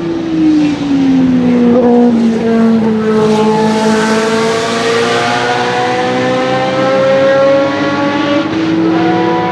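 Ford Cosworth DFV V8 of a 1974 Surtees TS16 Formula 1 car, loud throughout. Its note falls as the car slows for a corner, then climbs steadily as it accelerates away, with a short dip for a gear change about a second before the end.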